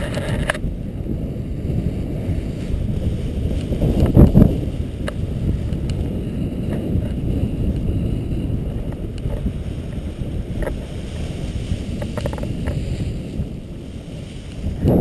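Wind buffeting the camera's microphone: a steady low rumble, with a stronger gust about four seconds in.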